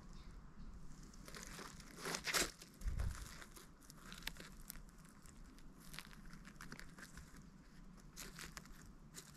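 Leaf litter and small twigs rustling and crackling as they are disturbed, with a louder rustle about two seconds in and a low thump just after.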